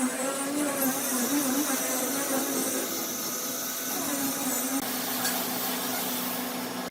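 A power tool running steadily in a workshop, a continuous whirring hiss with a steady hum; the sound changes character about five seconds in.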